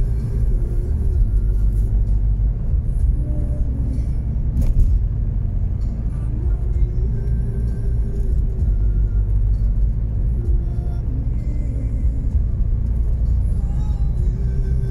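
Steady low rumble of a car's engine and tyres heard from inside the cabin while driving at road speed, with faint music over it. A single sharp click about five seconds in.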